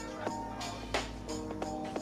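Background music with a slow, steady beat: drum hits, one about a second in, under held chord notes.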